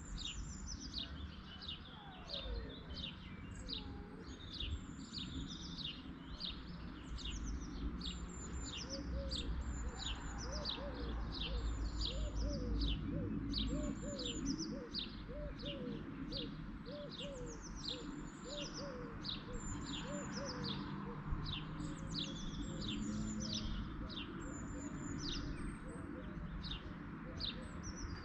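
Songbirds chirping: many short, high, quickly falling calls, several a second, with a lower run of short repeated notes through the middle and a steady low rumble underneath.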